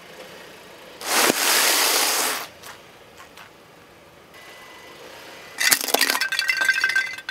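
A bag of cornflakes crunching under a car tyre for about a second and a half. Near the end, a small yellow plastic object cracks and breaks under the tyre in a quick run of sharp crackles with a brief ringing clink.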